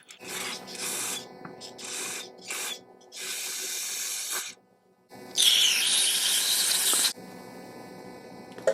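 Hissing spray jets cleaning carburetor parts: several short bursts, then a longer, louder blast of about two seconds starting about five seconds in.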